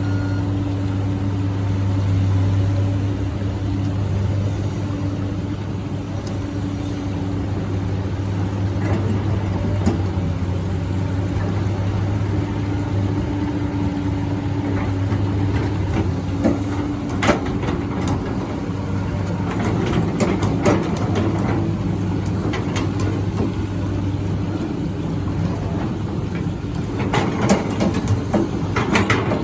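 Backhoe excavator's diesel engine running steadily while it works, with scattered sharp knocks and rattles in the second half and a cluster of them near the end.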